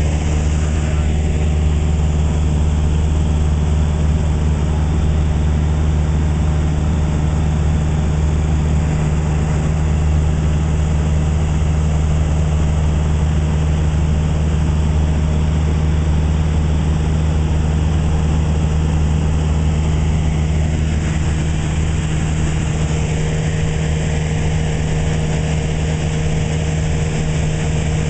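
Cessna 172's piston engine and propeller droning steadily in flight, heard from inside the cabin, with a constant low hum over the rush of airflow.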